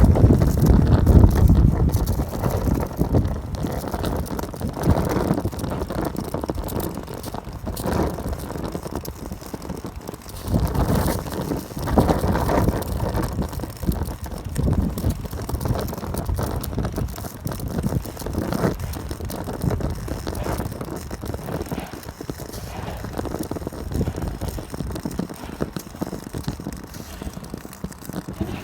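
Homemade alcohol stove burning in strong, gusting wind: a rushing, fluttering flame noise mixed with wind buffeting the microphone, swelling and falling with each gust. It is loudest in the first couple of seconds, with another strong gust about eleven seconds in.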